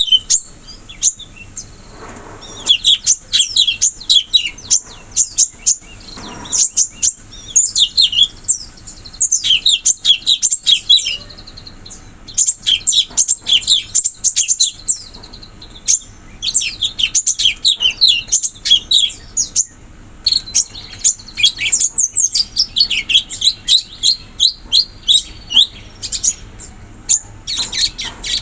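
Cucak cungkok singing energetically: dense runs of quick, high chirping notes, each a fast sweep in pitch, broken by short pauses.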